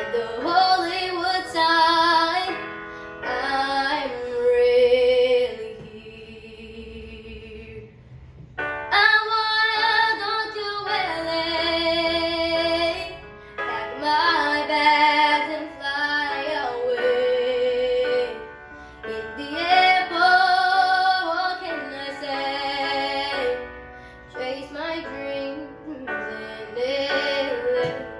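A young girl singing solo, in phrases with long held notes and a softer, quieter passage about a third of the way in.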